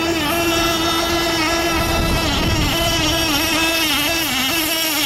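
Radio-controlled speedboat's motor running at high speed across the water: a steady high whine whose pitch wavers and dips briefly a few times.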